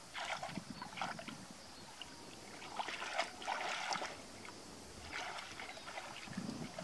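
Hands splashing and sloshing in shallow, muddy water in several bursts as someone gropes along the bottom for fish, the loudest a little after the middle.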